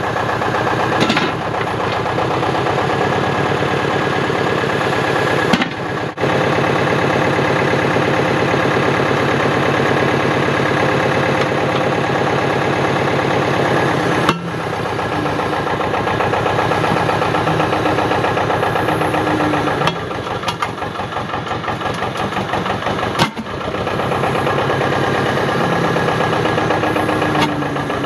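Thwaites Tusker dumper-digger's engine running steadily under load as the machine climbs a heap of stone, its note shifting a few times, with a few sharp knocks through it.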